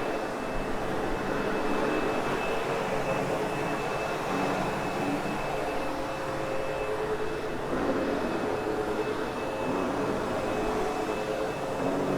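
Sebo X8 upright vacuum running steadily over a loop carpet, its motor and brush roll giving an even rush of noise with a steady high whine.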